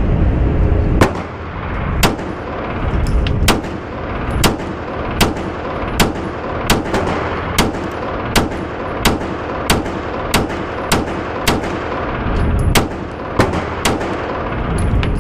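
Daniel Defense H9 9mm pistol fired in a steady string of about fifteen shots, roughly one a second or a little faster, starting about a second in. Each shot has a short echoing tail, over a steady background hum.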